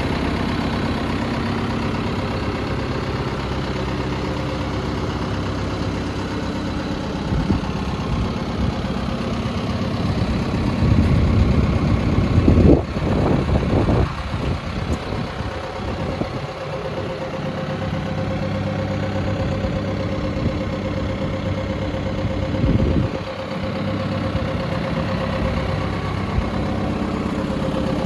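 John Deere 6130M tractor engine idling steadily, with a brief louder, uneven stretch about halfway through.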